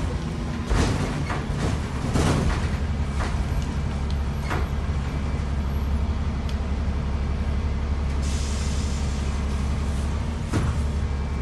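City bus interior while riding: the engine's steady low drone, with rattles and knocks from the body and fittings over the road in the first few seconds. A hiss of air starts about eight seconds in and keeps going.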